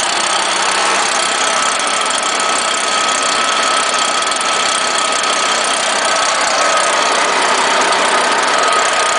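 Stihl BR420 Magnum backpack leaf blower's 57cc two-stroke engine running steadily at constant speed, a minute after a successful cold start on choke, with a steady high whine over the engine note.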